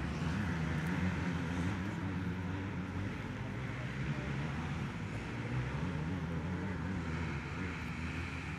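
Distant motocross motorcycles running on the track, a steady engine drone that rises and falls slightly in pitch.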